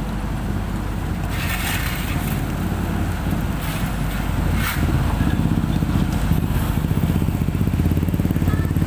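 Dump truck's diesel engine running, getting louder about halfway through, with a few brief scraping sounds.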